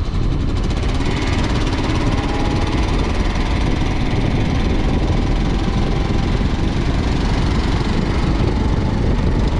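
2015 Kawasaki KLR 650's single-cylinder four-stroke engine running steadily while riding, mixed with heavy wind noise on the microphone.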